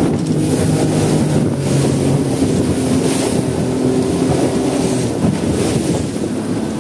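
Two-stroke Yamaha outboard motor running steadily with the boat under way, with wind buffeting the microphone and water rushing past the hull.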